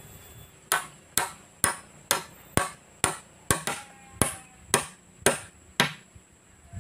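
About eleven sharp strikes of a metal tool head on a wooden pole frame, evenly paced at about two a second, each with a short ring, as the joint between a crossbar and a corner post is hammered.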